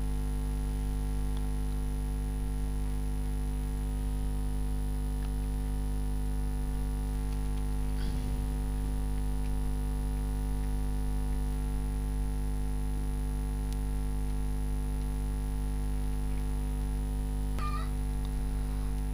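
Steady electrical mains hum, a constant low buzz with a ladder of overtones, with a faint brief sound about eight seconds in and a short high-pitched sound near the end.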